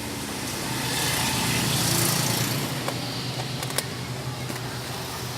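A small motor-vehicle engine, such as a motorbike's, running steadily as it passes close by, loudest about two seconds in, with a couple of sharp clicks later.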